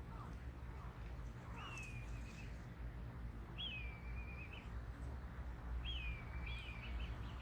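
A bird calling three times, about two seconds apart: each call a thin whistle that starts high, drops and wavers briefly. A steady low hum runs underneath.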